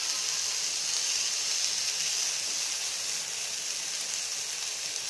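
Tandoori-marinated chicken sizzling in oil on a hot grill pan, a steady hiss.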